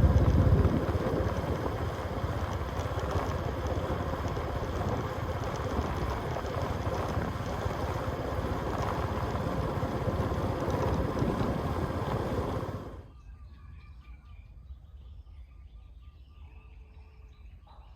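Steady rushing noise that cuts off abruptly about two-thirds of the way through. After it, a quiet stretch with faint bird chirps.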